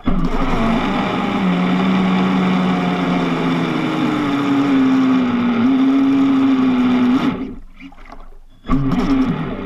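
Traxxas Spartan RC boat's brushless electric motor, on a 6S LiPo battery, whining steadily under throttle over water noise. Its pitch steps up about three and a half seconds in. The throttle comes off about seven seconds in, and a short burst of power follows near the end.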